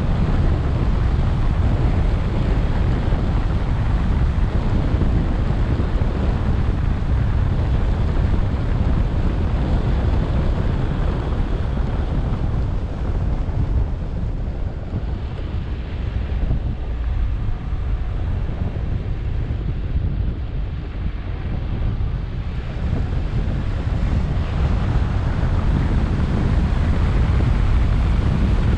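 Wind buffeting the microphone of a roof-mounted action camera on a moving car, a steady low rumble mixed with road noise. It eases off for several seconds midway, then picks up again.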